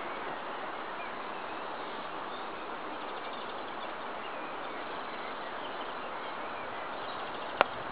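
Outdoor garden ambience: a steady background hiss with a few faint high chirps, and one sharp click near the end.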